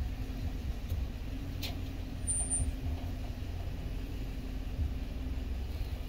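Vehicle engine running with a steady low rumble and faint hum, heard from inside a car; one brief click about a second and a half in.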